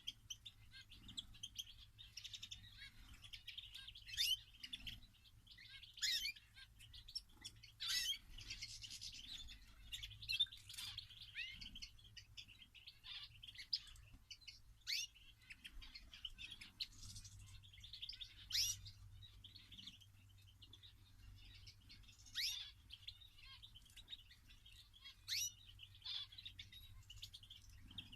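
Small cage birds chirping and twittering continuously, with sharp, louder single calls standing out about every two to four seconds.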